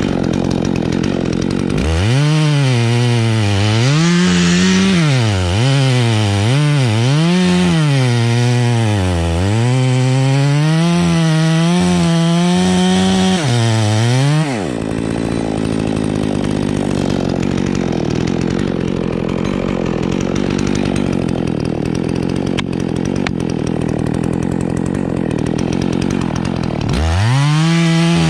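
Gasoline chainsaw revving to full throttle, its pitch dipping and recovering over and over as it works. About halfway through it drops back to a lower steady run, then revs up again near the end.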